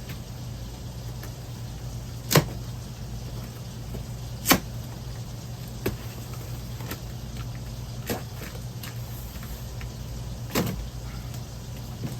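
A packed box being opened and its contents handled, with a few sharp knocks and bumps, the two loudest about two and four and a half seconds in, over a steady low hum.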